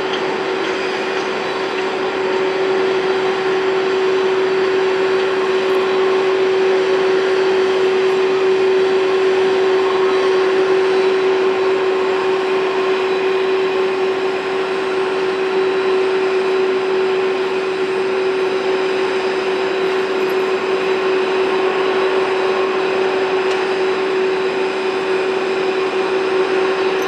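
Jet airliner engines running steadily at idle, a constant hum with a steady whine over it and no rise or fall in pitch.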